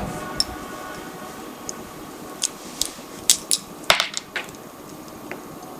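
Scattered small clicks and snaps from a UTP network cable being handled, most likely as its jacket is opened to show the twisted pairs, with a sharper double click about four seconds in.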